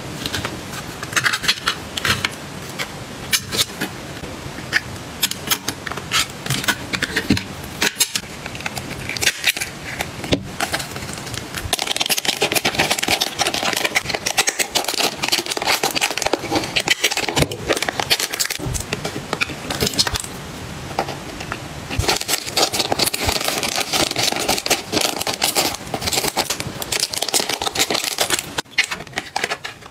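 Clear plastic bags and cellophane crinkling as they are handled, mixed with many small clicks and taps of plastic and metal snap hair clips and trinkets. The crinkling thickens into longer stretches about twelve seconds in and again after about twenty-two seconds.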